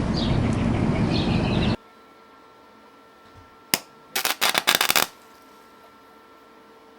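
Steady road and engine noise from a moving car, which cuts off abruptly a couple of seconds in. Then, in quiet, one sharp click and, about half a second later, a rapid run of sharp snaps lasting about a second.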